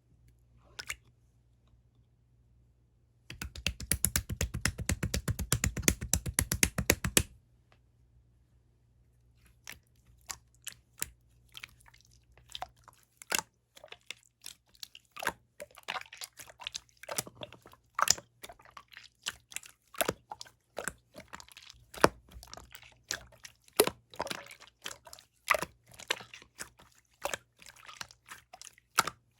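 Opaque slime being worked by hand, making sticky crackling clicks and pops: a dense run of rapid crackles for about four seconds, then after a short pause, irregular separate pops and clicks.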